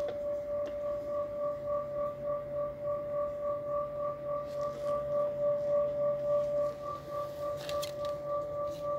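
A steady tone held at one pitch, wavering a little in loudness about three times a second.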